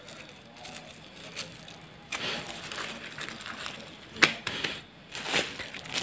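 Thin plastic bags rustling and crinkling as hands twist, knot and pick up bags filled with bait dough. The rustling gets louder about two seconds in, with a sharp click a little after four seconds.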